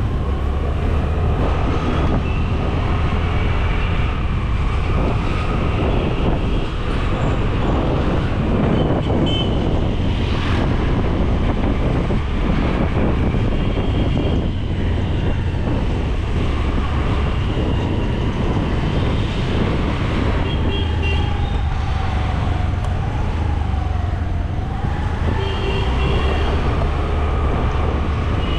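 Road traffic heard from a bicycle: passing vehicles and a few short horn toots over a steady low rumble.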